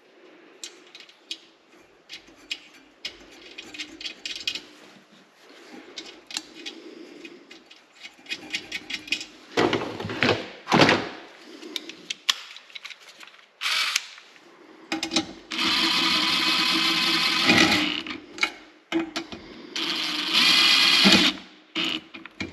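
A power drill running in two bursts, the first about two and a half seconds long and the second about a second and a half, spinning new nuts down into place on the diesel heater's mounting. Clinks and knocks of handling small metal parts come before it.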